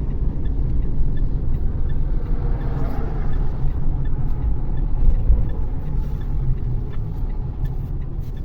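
Car running along a road, a steady low rumble of engine and tyre noise heard from inside the cabin.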